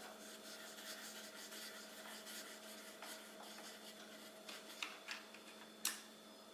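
Faint rubbing and scratching over a steady low hum, with a few light clicks near the end, the sharpest about six seconds in.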